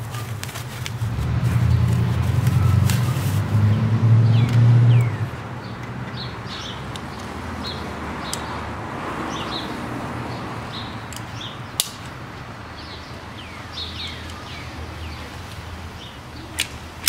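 Small birds chirping again and again over a low hum that is loudest between about one and five seconds in. Two sharp clicks later on come as the red metal frame of a rollator walker is handled.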